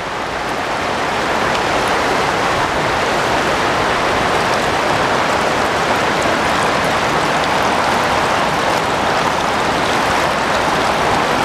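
Steady rush of river water flowing over shallow rapids and riffles.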